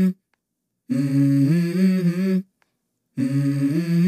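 Background song with a hummed vocal melody: held notes stepping up and down in phrases of about a second and a half, broken twice by moments of total silence.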